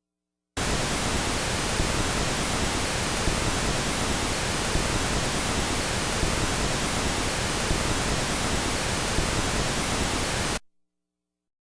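Pink noise test signal: a steady, even hiss covering the whole range from deep bass to high treble, switching on abruptly about half a second in and cutting off just as abruptly about ten seconds later. It is played as a speaker burn-in and system test signal.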